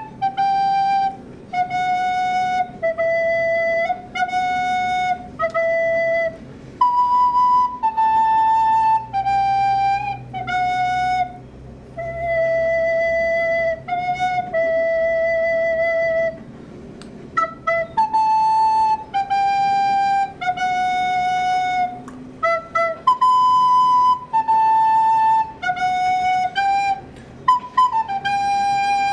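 Recorder playing an improvised melody one note at a time, mostly in held notes with short breaks between phrases. There are a few quick short notes about three quarters of the way through.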